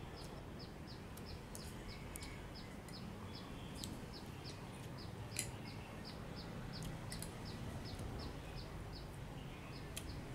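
A small bird's high chirp repeated evenly, about four times a second, over a steady low outdoor rumble. A few light clicks of a spoon against a ceramic pot come through, the sharpest about five seconds in.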